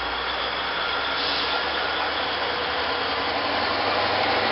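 Caterpillar 777 haul truck's diesel engine running hard as it pulls against a tow strap attached to another haul truck, a dense engine noise with a low hum that grows gradually louder.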